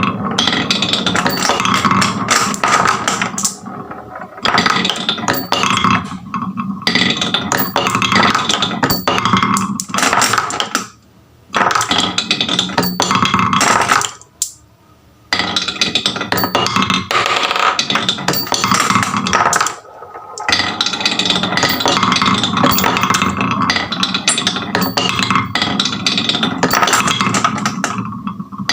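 Many marbles rolling and clattering down wooden HABA marble-run tracks: a dense, continuous rattle of wooden clicks and knocks, broken by two brief near-quiet gaps.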